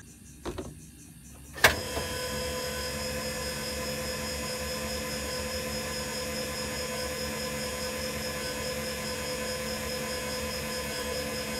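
The electric landing gear motor of a 2007 Keystone Montana fifth wheel starts with a sharp click a couple of seconds in, then runs with a steady whine as it drives the jack legs up or down. It runs nice and smooth, the screws and gearing freshly greased.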